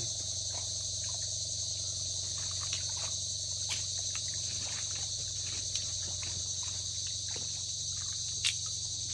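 Steady high-pitched chorus of insects in a mangrove forest, with scattered sharp clicks and one louder click near the end.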